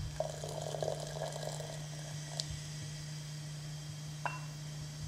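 Water poured in a short stream into a vessel for about two seconds, then a light click of a utensil, and a second light tick near the end, over a low steady hum.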